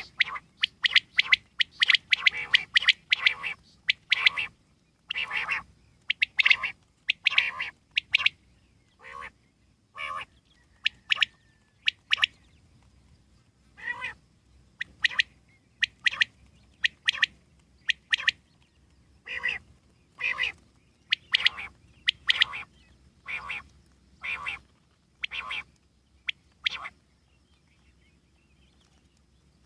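Common quail calling: a long series of short, harsh calls, about one or two a second, that stops a few seconds before the end.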